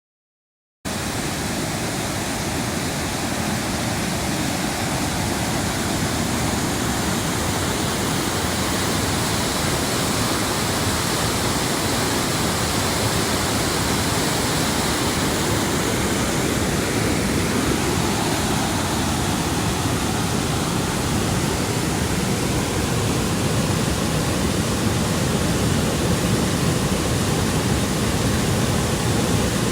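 Waterfall: falling water rushing as a steady, even wash of noise, cutting in suddenly about a second in.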